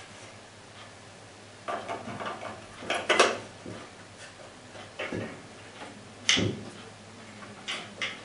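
Scattered clicks, clacks and knocks of hands handling a steel drawer safe and its small parts, about six separate strokes with the sharpest about three seconds in and just after six seconds.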